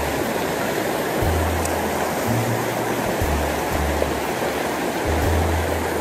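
Mountain stream rushing over boulders in a steady, unbroken rush of water. Under it runs background music, its low bass notes changing every second or so.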